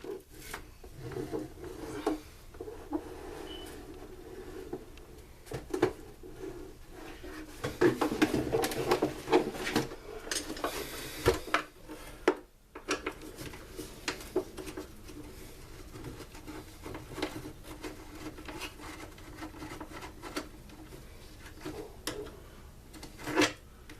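Hand disassembly of a Stihl SR 420 backpack blower's plastic fan shroud: irregular clicks, knocks and rubbing of tools and housing parts, busiest about eight to eleven seconds in.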